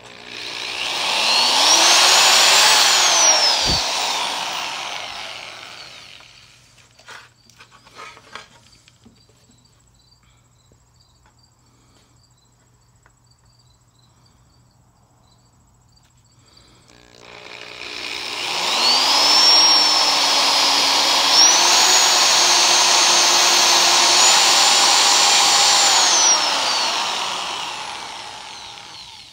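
Electric hand drill boring bolt holes in a fiberglass fender: two runs, a short one at the start and a longer one from about halfway, each with a whine that rises as the motor spins up and falls as it winds down. The longer run steps up in speed partway through, and a few light clicks fall in the gap between the runs.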